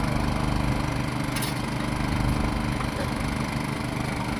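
A steady low engine-like hum running evenly, with one short click about a second and a half in.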